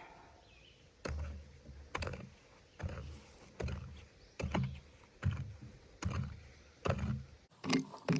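Garden hoe chopping into wet soil, a dull strike about once a second, eight strikes in all. Music comes in near the end.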